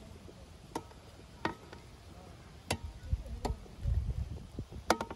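Long-handled metal skimmer knocking against a large metal stockpot of boiling sheep heads as the foam is skimmed off: about five sharp taps, each with a short metallic ring. A low rumble comes about four seconds in.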